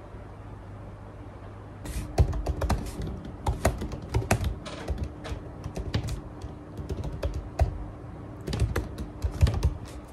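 Typing on a keyboard: quick, irregular key clicks start about two seconds in and keep going, over a low steady hum.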